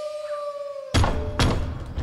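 A long held note ends about a second in, followed by two loud knocks on a wooden cottage door, with a third knock starting right at the end: a cartoon door-knocking sound effect.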